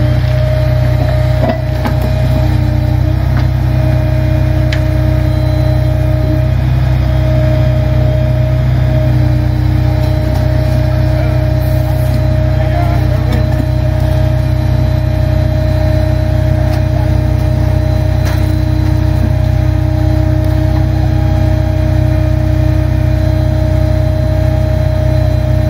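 Truck-mounted hydraulic rail crane running steadily under load as its grapple swings and lowers a stick of rail, the truck engine's low rumble carrying a steady whine, with a few faint clinks.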